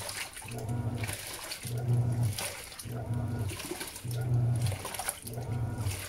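Panasonic 16 kg top-load washing machine agitating a load in water: the pulsator motor hums in short strokes about once a second, with water sloshing and splashing between strokes.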